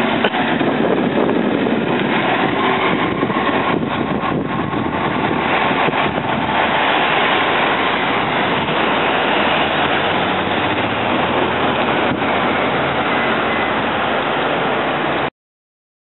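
SEPTA New Flyer DE40LFR diesel-electric hybrid bus with a Cummins ISL9 diesel engine, driving past close by and pulling away down the street, mixed with steady street traffic noise. The sound cuts off abruptly about a second before the end.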